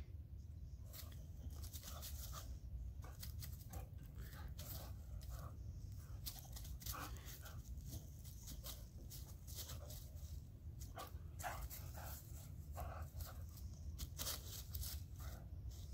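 Boxer dog leaping at and tugging a low, bare tree branch: a string of short, faint dog sounds mixed with the crackle and rustle of twigs and dry leaves, over a steady low rumble.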